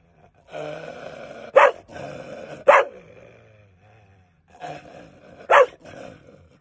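An angry dog growling with bared teeth, breaking into three sharp barks: two about a second apart early in the growl and one more near the end, the barks the loudest sounds.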